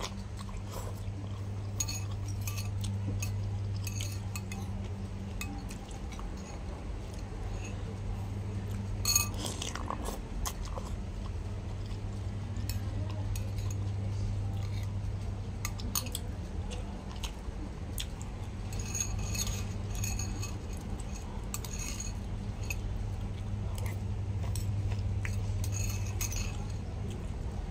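Metal spoon and fork clinking and scraping now and then against a ceramic noodle bowl while eating, over a steady low hum. One sharper clink about nine seconds in is the loudest sound.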